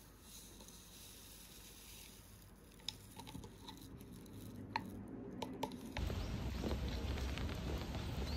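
A thin liquid trickling from a stick pouch into a ceramic mug, with a few faint drips and ticks. About six seconds in, the sound switches abruptly to louder outdoor noise of steady rain.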